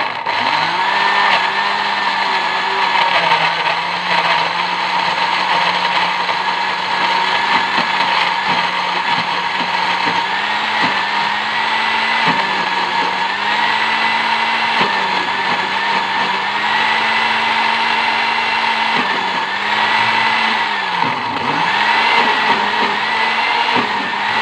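Electric kitchen blender running, grinding shallots, garlic, candlenut, turmeric and tomato with a little water into a spice paste. It starts abruptly, and its motor pitch holds steady but wavers a little, sagging briefly near the end as the load shifts.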